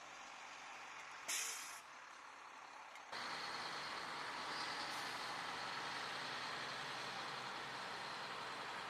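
Steady heavy-vehicle noise with a short, sharp hiss of air about a second in, then a sudden jump to louder steady vehicle noise about three seconds in.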